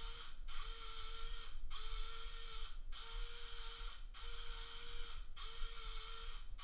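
Hobby servo with its feedback potentiometer removed, driving the antenna tracker's turntable through a small wheel, whirring with a steady whine in runs of about a second broken by short pauses, about one every 1.2 seconds.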